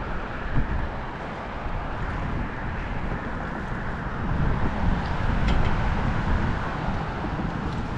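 Wind buffeting the microphone over a steady rush of road traffic from a highway bridge, growing a little louder past the middle as vehicles go by.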